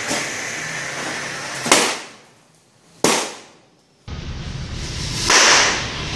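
Firework rocket thruster on a small homemade rocket car hissing steadily, cut off by a sharp bang, with a second sharp bang about a second and a half later as balloons burst. Near the end a low hum and a second rocket hiss that swells and fades.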